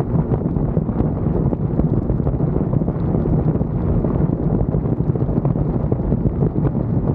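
Suzuki Inazuma motorcycle with its stock exhaust, running steadily on the move, with heavy wind noise buffeting the microphone.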